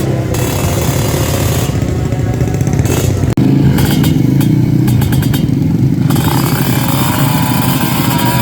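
Loud drag-racing motorcycle engines running and revving, with the pitch sliding up and down in the second half. The sound drops out for an instant a little over three seconds in.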